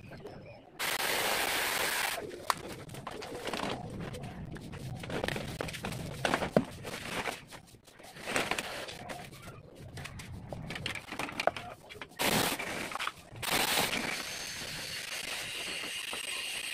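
Cordless battery mini chainsaw cutting through a tree branch in a few short bursts, the longest about a second in and two more near the end, with cracking and rustling of branches and leaves in between.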